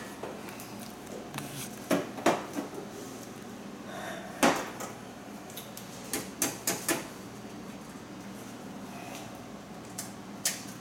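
Scattered sharp knocks and clinks of a ceramic mug and kitchenware being handled on a kitchen counter and stovetop, with a quick cluster of them about six to seven seconds in.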